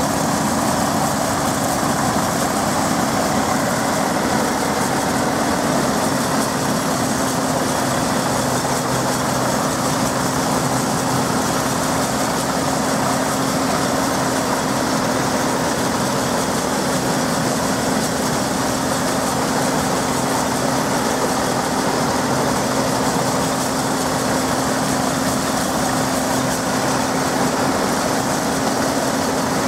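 Vintage Caterpillar D5 diesel crawler tractor running steadily as it slowly tows a Holt combine harvester. It makes an even engine drone with a constant low hum, at steady speed and load.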